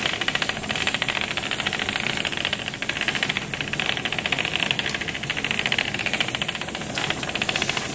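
A swarm of Hexbug Nano vibrating micro-robots buzzing and rattling over a tabletop: a dense, continuous fast rattle.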